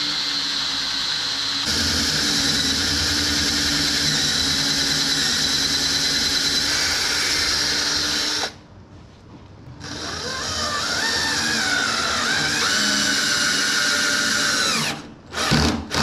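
Cordless drill running under load, working up into the underside of wooden countertop boards to bore 10 mm counterbores and drive the screws that hold the boards from below. It stops about eight seconds in and starts again a second later with its pitch shifting, then ends in several short trigger bursts.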